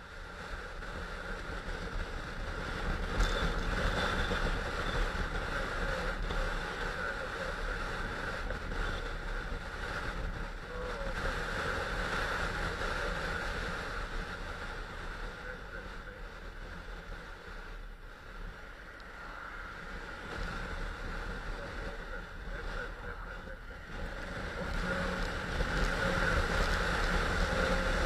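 Riding noise of a BMW F650GS motorcycle at road speed: wind rushing over the microphone with the engine running underneath. The rush swells in the first few seconds, eases in the middle and grows again near the end.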